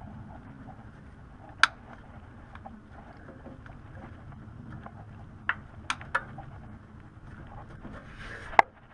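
A few sharp clicks and snaps from hand work with a cable tie and snips on the oxygen sensor wiring, over a steady low background noise. The loudest snaps come about a second and a half in and near the end, with a quick cluster of three around the middle.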